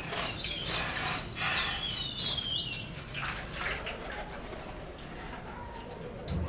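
Birds singing high, sliding whistled calls, strongest in the first couple of seconds and again briefly a little after the middle. Under them, liquid poured from a plastic bottle splashes onto a knife blade in a metal tray.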